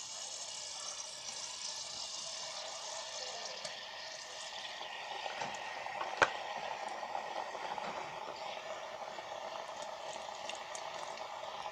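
Gram-flour-battered potato pieces deep-frying in hot oil inside an electric kettle: a steady sizzle and bubbling with small crackles. A single sharp click about six seconds in.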